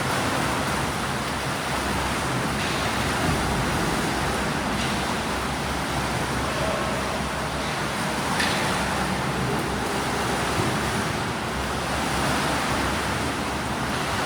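Steady rushing noise of swimmers churning and splashing water in a swimming pool, with a few slightly sharper splashes.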